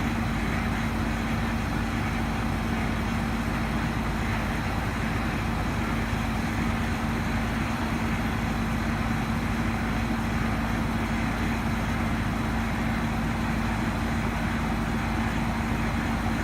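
Heavy diesel engine running steadily at constant speed, with a steady hum and no revving or load changes.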